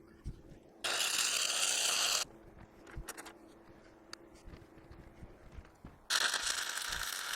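Lincoln 225 buzz box arc welder laying tack welds: two crackling, hissing bursts of arc, one about a second in and one near the end, over a steady low hum.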